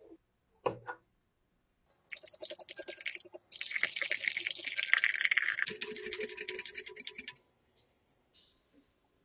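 Wire whisk beating eggs in a glass bowl, a fast scratchy rattle of strokes against the glass while hot milk is poured in and stirred. The whisking starts about two seconds in and stops about seven and a half seconds in, after a short thump just under a second in.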